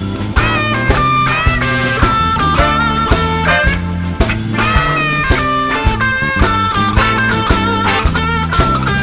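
Blues-rock music in an instrumental passage: a lead guitar plays a melody with bent notes over bass and a steady drum beat.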